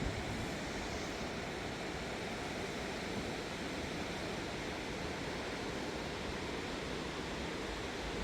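Steady rush of a swollen river in flood, an even wash of water noise with no change.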